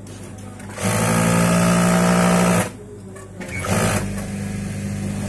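Typical industrial single-needle sewing machine stitching in two runs: a steady run of about two seconds starting about a second in, then after a short pause a second run that starts with a burst and carries on at a lower, even level.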